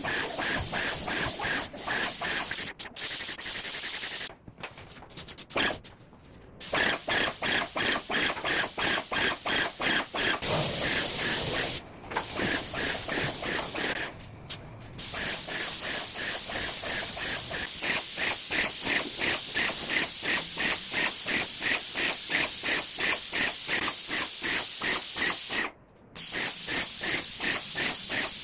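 Airless paint sprayer spraying paint: a loud, dense hiss with a rapid pulse, cutting out briefly several times.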